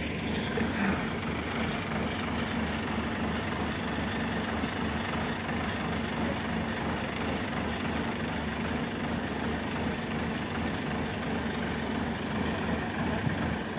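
Crawler rice combine harvester's diesel engine running steadily at a constant speed, with a steady low hum under a mechanical rush.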